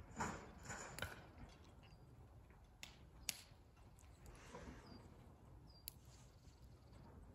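Near silence with faint scattered clicks and a few soft rustles.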